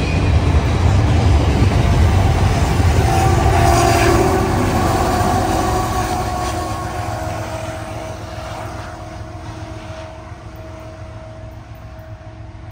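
Freight train passing on diesel power: a loud low rumble with a steady engine drone whose pitch sags slightly a few seconds in, then the sound fades steadily as the train moves away.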